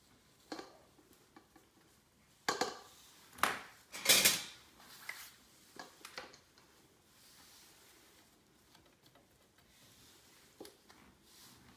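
A spatula scraping and knocking against a mixing bowl as mashed potatoes are scooped out. There are a few sharp knocks, the loudest about four seconds in, then fainter scrapes.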